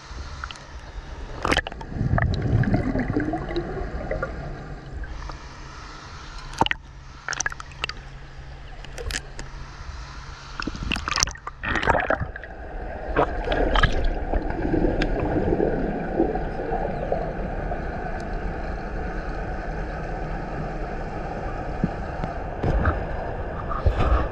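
Pool water sloshing and splashing against a handheld action camera at the surface, then, about halfway through, the muffled, gurgling rush of the camera going under the water.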